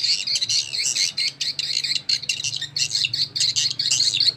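Recorded swiftlet call sound (SP) played through square horn tweeters from a dual MP3 player amplifier: a dense, continuous stream of short, high-pitched chirps.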